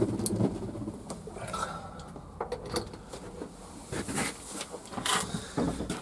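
Irregular rustling, clicks and knocks of handling around a pigeon nest box, with short swishes about four and five seconds in.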